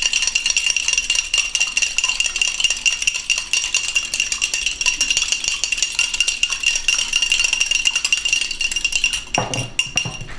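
A fork beating an egg with a splash of milk in a cup or small bowl: rapid, steady clicking of the fork against the dish.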